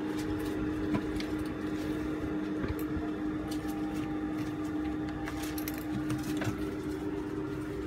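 Juki industrial sewing machine's motor humming steadily, with scattered clicks and taps from the machine and handling of the work.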